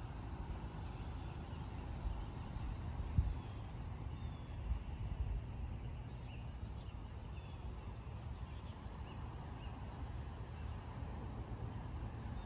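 Birds chirping, with short high calls scattered through the stretch over a steady low rumble.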